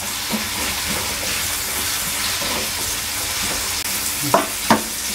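Sliced carrots and meatballs sizzling steadily in hot oil in a wok while being stirred with a spatula. Two sharper knocks of the spatula against the wok come close together near the end.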